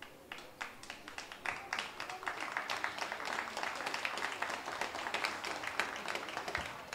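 Spectators clapping: a few scattered claps that build into steady applause about a second in, easing off near the end.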